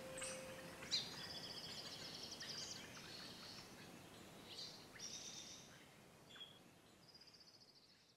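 Birds chirping and singing quick trills over and over, fading out gradually; a held note of the track's music dies away about a second in.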